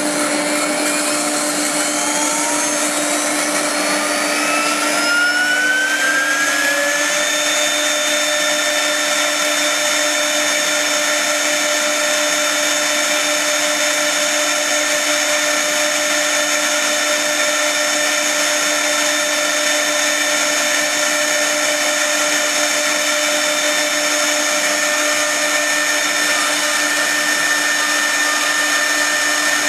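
CNC router spindle cutting 40 mm MDF: its whine climbs in pitch over the first seven seconds or so, then holds at a steady high whine with the noise of the bit chewing through the board. A steady lower hum runs underneath.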